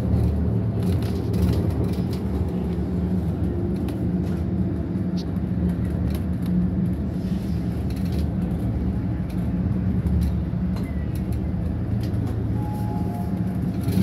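Steady low engine drone and road noise heard inside a moving bus.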